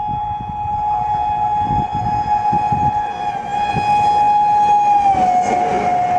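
WAP7 electric locomotive's horn sounding one long unbroken blast as the express approaches at speed, its pitch dropping slightly about five seconds in as the locomotive passes. Under it runs the rumble of the train on the track, spreading and rising as the coaches go by near the end.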